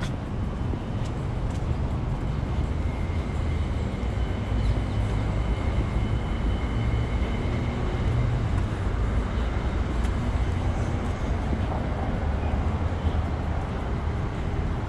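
Steady low rumble of city street ambience picked up by a walking camera, with a faint high steady tone for several seconds in the middle.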